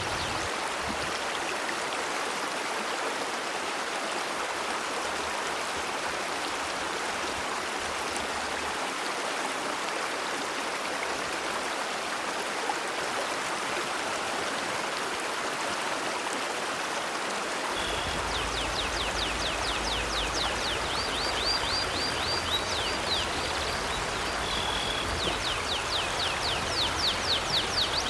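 Steady rush of a flowing river. From about two-thirds of the way through, a bird chirps over it in rapid, repeated high notes.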